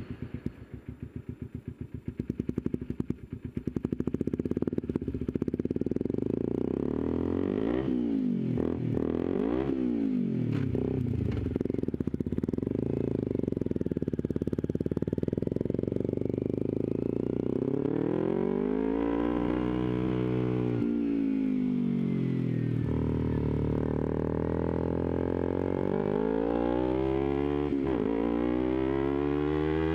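Kawasaki Ninja 250's parallel-twin engine, running on the last of its fuel, pulsing unevenly and growing louder over the first few seconds, then pulling away with the revs rising and falling as it accelerates and changes gear, with a long rise and fall about two-thirds of the way through.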